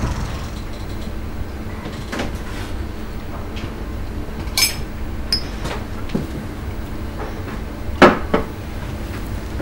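Drinking glasses being set down on a table: scattered light clinks and knocks, one brief glassy ring midway and the loudest knock about eight seconds in, over a low steady background hum.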